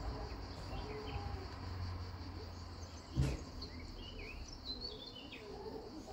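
Outdoor ambience: small birds chirping in short bursts over a steady high insect chirring and a low rumble, with a single sharp knock about three seconds in.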